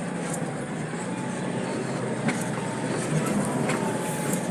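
A vehicle driving slowly over a rough 4x4 dirt track: steady engine and road noise, with a few sharp knocks and rattles from the bumps.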